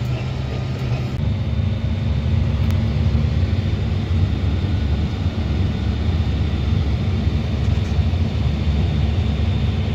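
Heavy farm machinery running steadily with a low rumble: a Dion forage wagon unloading chopped corn silage onto a silage bagger's conveyor, packing it into a plastic silage bag. About a second in, the sound changes from tractor cab engine noise to the bagging machinery.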